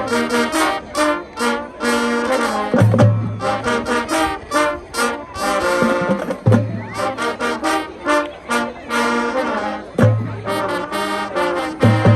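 High school marching band playing, led by brass with trombones and trumpets sounding short chords, and low drum hits every few seconds.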